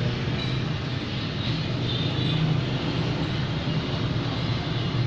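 Philips hair dryer running steadily, its fan motor blowing with an even whir.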